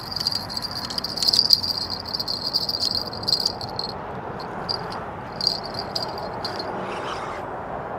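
Fishing reel whirring with a high whine and rapid clicking as a hooked channel catfish is fought, steady for about four seconds, then in short spurts.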